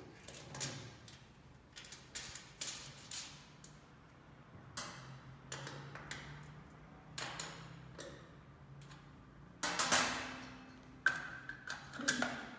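Irregular clicks and knocks from the negative battery cable's lug and terminal hardware being fitted onto a hybrid inverter's negative battery port. There is a louder cluster of knocks about ten seconds in.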